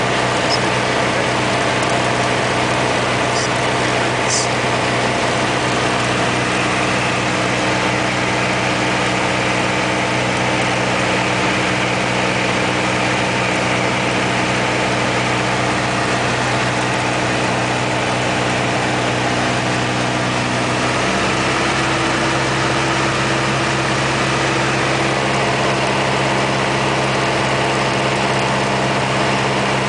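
Piper Archer's four-cylinder Lycoming engine and propeller droning steadily, heard inside the cockpit. The engine note shifts slightly in pitch about two-thirds of the way through.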